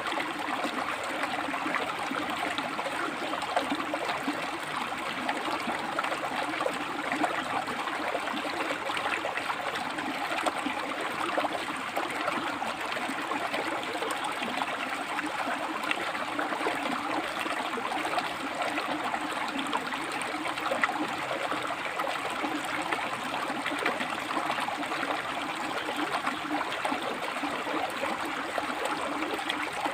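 A shallow river running over and between rocks: a steady rush of water with small splashes and gurgles.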